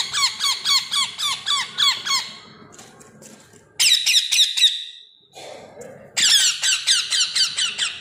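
Baby parrot chicks giving begging calls at a spoon of hand-feeding formula: rapid, high-pitched squeaky calls, about five a second, in three bursts.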